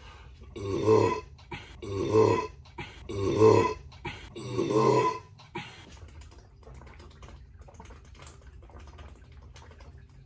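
A person burping four times in quick succession, each burp loud and pitched and lasting under a second, about a second apart.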